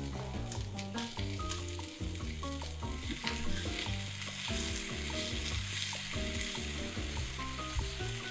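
Vegetables sizzling in oil in a frying pan as shredded cabbage goes in and is stirred with a wooden spatula, with scattered scrapes and taps from the spatula. Background music runs underneath.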